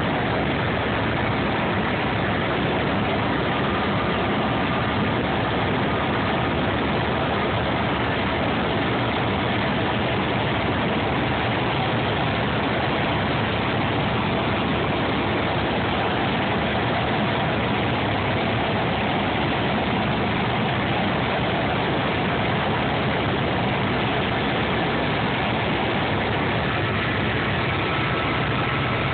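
Steady engine and rotor noise of a small helicopter in flight, heard inside the cabin. It runs loud and unchanging, as a dense, even drone.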